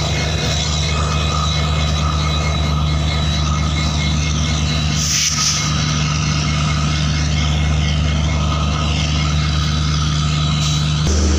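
Diesel locomotive engine idling with a steady low hum and a thin high whine, and a short hiss of air about five seconds in. The engine note shifts just before the end.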